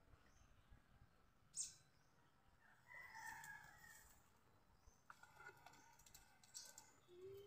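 Near silence, broken by a faint bird call about three seconds in and a light click before it.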